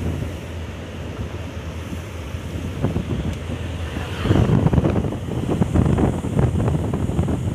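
Wind buffeting the microphone, a low rumbling noise that gusts louder a little past the middle.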